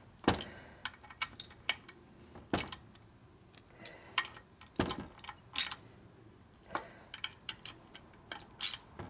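Ratchet with a hex bit tightening the oil pump mounting screws on an ironhead Sportster engine case: irregular sharp metallic clicks and clinks as the screws are torqued down.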